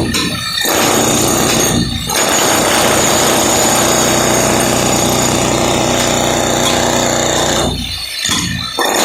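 Electric hammer drill hammering into a floor to break it up, running loud and steady with short pauses about half a second in, around two seconds in, and twice near the end.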